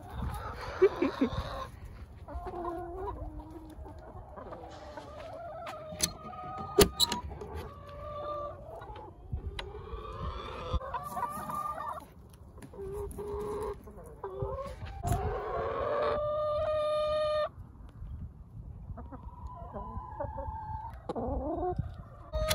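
A flock of chickens clucking and calling close by, with a rooster crowing in one long call about fifteen seconds in, and a couple of sharp knocks partway through.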